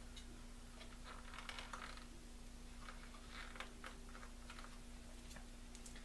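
Faint, scattered clicks and rustles of hands handling wires and parts inside a radio's power supply, over a steady low hum.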